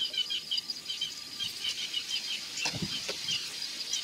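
Insects chirping: a steady high trill with short high chirps repeating several times a second, and a few light knocks about three seconds in.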